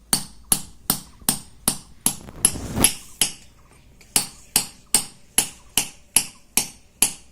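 A hammer tapping a chisel into a shil-pata grinding stone, sharp ringing strikes about two to three a second with a short break a little after three seconds in. It is pecking small holes into the stone's grinding face to repair it.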